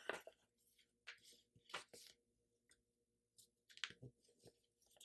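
Faint rustles and scrapes of a sheet of paper being folded and its crease pressed flat by hand, a handful of brief soft sounds spread over a few seconds.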